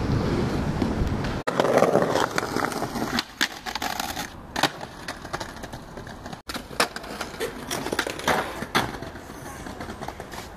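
Skateboard wheels rolling over concrete and paving, with sharp clacks of the board popping and landing. The sound cuts off abruptly twice as one short phone clip gives way to the next.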